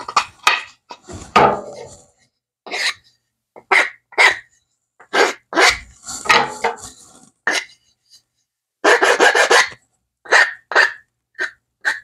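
Hand file rasping across the cut edges of a wooden board in separate strokes, deburring it. The strokes come unevenly with short pauses, and there is a quick run of about five strokes near the three-quarter mark.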